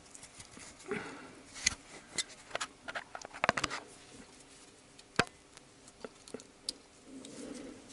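Scattered light metal clicks and taps, about eight in all, as a thin screwdriver pries washers off the oil-pan bolts one by one. The washers are stuck on with sealant.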